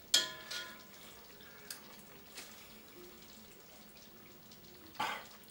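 A metal fork clinks once against the pan with a brief ring as a bite of curry is scooped out. Then the curry sizzles faintly in the hot pan, with a few small ticks, and a short breathy sound comes near the end.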